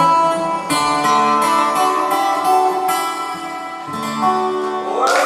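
Music: the instrumental closing bars of a song, played on plucked strings, with a continuous run of notes.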